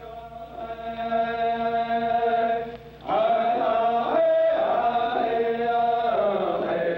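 Wordless chanting on long held notes, swelling in gradually; it breaks off about three seconds in, then returns louder with a slightly wavering pitch.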